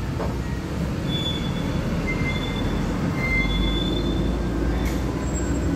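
Steady low rumble of road traffic, with several brief high-pitched squeals over it.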